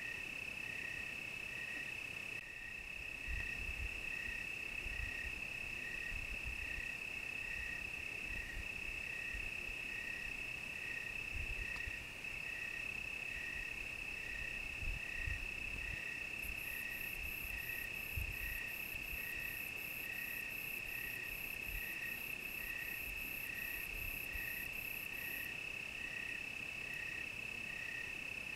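Crickets chirping: a steady, unbroken high trill with a slower chirp repeating about twice a second beneath it. From a little past the middle, a very high, faster pulsed chirping of another insect joins for about nine seconds, then stops. Faint low rumbles come and go underneath.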